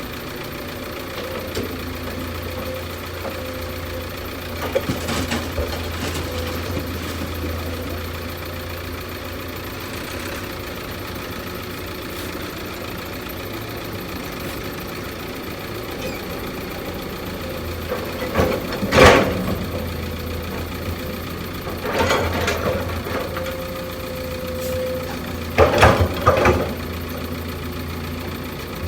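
A heavy machine's engine idling steadily, with several loud clanks: one about two-thirds of the way through, another a few seconds later and a pair near the end.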